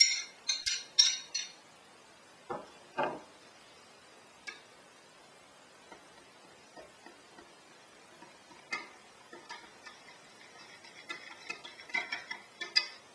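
A thin metal utensil clinking and scraping against a plastic measuring jug while stirring fresh yeast into warm water to dissolve it. A cluster of bright clinks comes in the first second or so, then scattered taps, and quick irregular tapping near the end.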